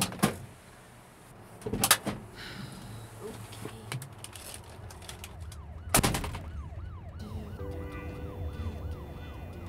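Pickup truck cab doors opening and slamming shut, several heavy knocks with the loudest about six seconds in. A siren-like wail follows, rising and falling about twice a second, and music comes in near the end.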